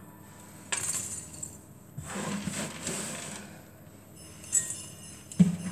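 Coarsely chopped toasted almonds tipped from cupped hands into a glass bowl, the pieces landing against the glass. The first pour starts suddenly under a second in, with more around the second and third seconds.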